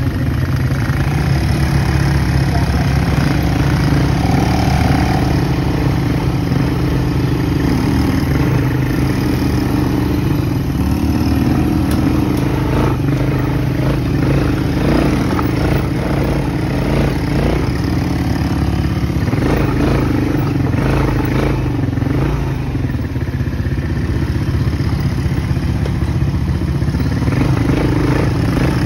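ATV (quad bike) engines running steadily at low trail speed, heard close up from a moving quad. Knocks and rattles from the bike over the rough dirt track come and go midway through.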